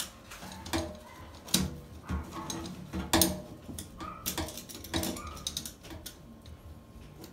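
Garbage disposal mounting ring hardware clinking and knocking against the sink flange of a stainless steel sink as it is pressed into place: about half a dozen sharp metallic clicks and taps, some ringing briefly.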